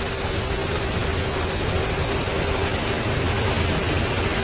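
Steady rushing roar of floodwater pouring across a street and down a flight of steps, with a faint steady hum underneath.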